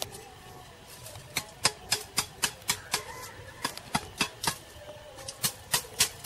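Sharp taps or knocks in quick irregular runs, about three to five a second, starting about a second in and pausing briefly between runs.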